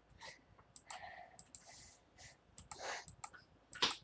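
Computer mouse clicking a few times at irregular intervals, faint, as items on screen are selected one after another, with the sharpest click near the end. Soft hissy noises sit between the clicks.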